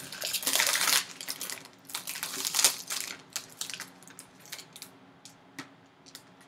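Foil trading-card pack wrapper torn open and crinkled by hand, loudest in the first second, then scattered crinkles and light clicks that thin out as the cards are slid out.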